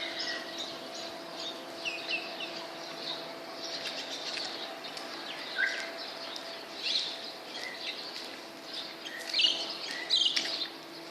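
Small birds chirping and calling in many short, high notes, over a faint steady hum.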